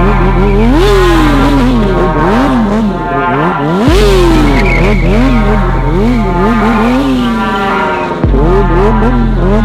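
Stunt motorcycle engine revved and let off over and over, its pitch swinging up and down several times a second as the bike is held in slow circling tricks. Steady low background music runs underneath.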